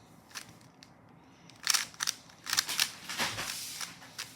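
Quick, irregular plastic clicking of a speed cube's layers being turned during a solve, in bursts of several turns with short pauses between.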